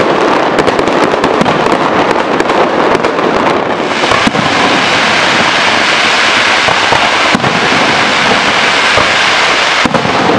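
Fireworks display: a dense rapid crackle of bursting shells for the first few seconds. About four seconds in, a steady loud hiss of ground fountains spraying takes over, broken by a few sharp bangs.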